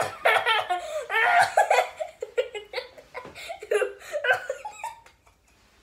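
A person laughing in a long run of giggles that dies away near the end.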